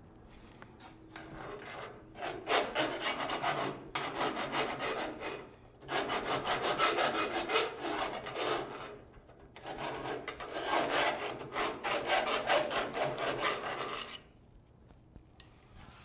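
Hand file rasping back and forth in a hole drilled through a steel chassis tube, opening it out for clearance. The quick strokes come in three spells with short breaks between, a thin high ring sounding over them, and stop about two seconds before the end.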